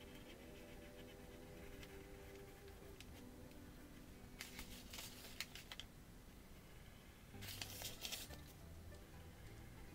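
Quiet room tone with two brief bouts of paper rustling, about halfway through and about three quarters through: a loose protective sheet of paper shifted under the hand during marker outlining.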